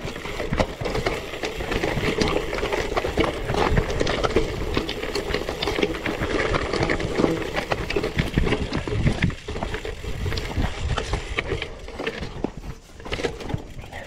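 Gravel bike on 700x38c tyres riding over a rocky off-road trail: tyres crunching over stones and the bike rattling and knocking continuously, easing off briefly near the end.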